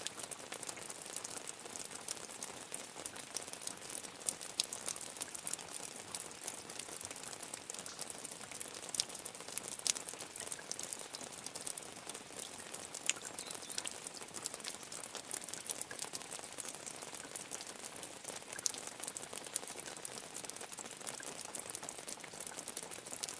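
Medium rain falling steadily, a dense patter of many small drop impacts with no let-up.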